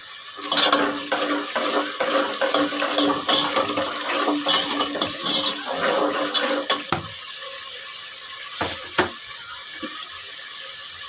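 A metal spoon stirs and scrapes watery onion-tomato masala bubbling and sizzling in an aluminium pot. The pot rings with the scraping. The stirring stops about seven seconds in, leaving the steady sizzle with a few knocks of the spoon against the pot.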